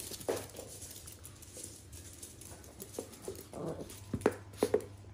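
Small terriers playing together on a hard floor: scattered short whimpering dog noises, with a few sharp taps of paws on the floor near the end.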